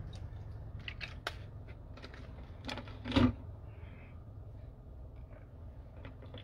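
Plastic water bottle being drunk from and handled: a few light clicks and crinkles, with one louder knock about three seconds in, over a low steady hum.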